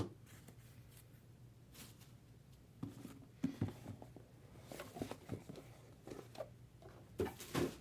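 Faint rustling and tapping as trading cards and their packaging are handled, in short scattered bursts over a faint steady low hum.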